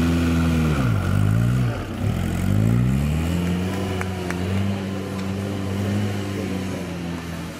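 Vintage car engine revving hard. The revs drop about a second in, pick up again, then settle to a steadier pull that slowly fades.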